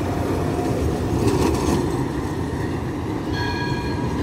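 Tram running on its rails with a steady low rumble and a brief high hiss about a second and a half in; shortly before the end a short steady tone sounds.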